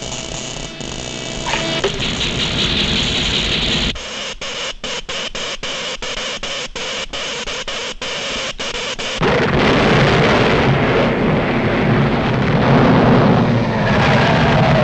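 Cartoon sound effects of an electrical earthquake machine: a quick run of sharp crackling zaps, about three a second, then from about nine seconds in a sudden loud, dense rumbling noise of an explosive quake.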